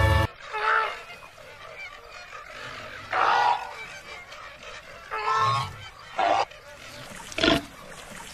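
Cartoon flamingos honking: five short goose-like honks spaced irregularly, a second or more apart.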